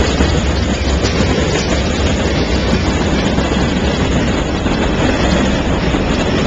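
CN freight train's tank cars and covered hoppers rolling past close by, a loud, steady rolling noise of steel wheels on rail.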